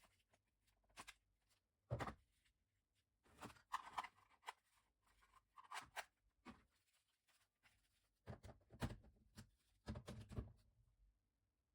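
Near silence broken by faint, scattered rustles and clicks, with a few soft knocks about two, six, nine and ten seconds in.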